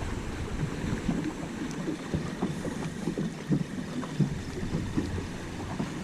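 Wind buffeting the microphone, with choppy water lapping and slapping against a small boat's hull in frequent small knocks.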